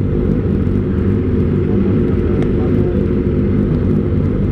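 Kawasaki ZX-25R's inline four-cylinder engine idling steadily through an Austin Racing aftermarket silencer.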